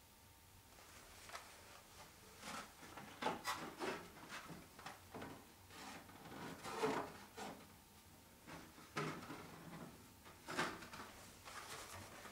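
Carded action figures being handled and set back on a wooden display shelf: scattered rustles of cardboard cards and plastic blisters with light knocks against the wood.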